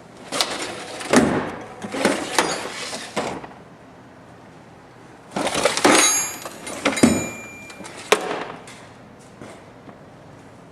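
Steel tool chest drawers being slid open and shut, with the tools inside rattling and clinking, in two bouts a few seconds apart; the second bout has ringing metal in it.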